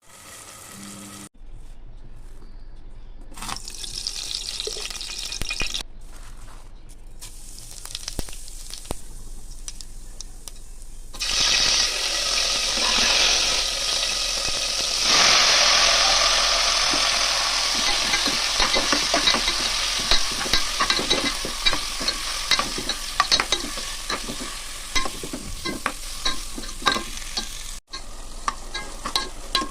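Food frying and sizzling in a pan while being stirred, a spoon scraping and clicking against the pan. The sizzle starts loud about eleven seconds in and grows louder a few seconds later, after a quieter stretch broken by abrupt cuts.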